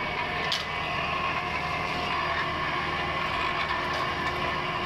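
A portable shaft-machining machine running steadily, its motor and gear drive giving a constant hum with several held tones, and a light click about half a second in.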